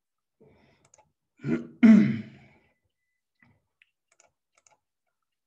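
A man clearing his throat about a second and a half in: a short rasp followed at once by a louder one that fades. A few faint ticks follow.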